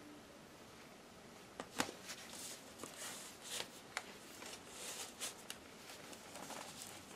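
Handling noises as a Dell Inspiron 14 5493 laptop with its base cover off is closed, turned over and set down on a foam packing sheet. There are a few light knocks, the sharpest about two seconds in, among short soft rustles.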